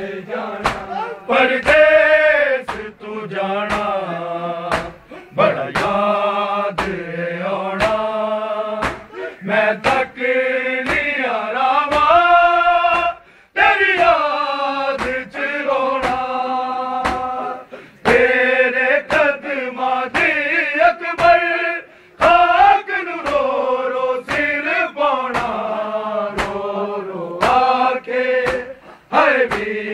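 Male voices chanting a noha, a Shia mourning lament, in a slow sliding melody. Mourners' open-hand chest-beating (matam) cuts through as sharp slaps in a steady beat, about one every 0.7 seconds.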